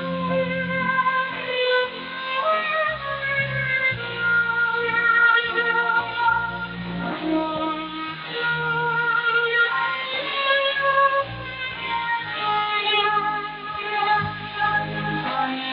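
Music with melody lines over a shifting bass, received over shortwave radio, so the sound is band-limited with nothing above about 5 kHz.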